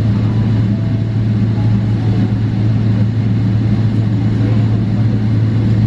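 Steady low drone inside the passenger cabin of a Boeing 777-300ER, with a deep hum that holds an even pitch and level throughout.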